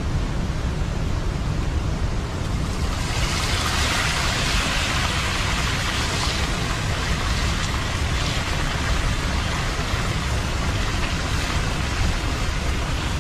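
Chopped vegetables dropped into hot oil in an iron wok over a wood fire, breaking into a loud, steady sizzle about three seconds in, over a low constant rumble.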